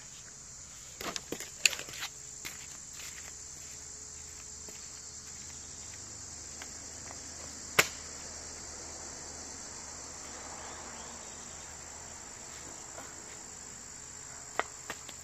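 Steady, high-pitched chorus of insects outdoors. A few light knocks come about one to three seconds in, and one sharp knock about halfway through.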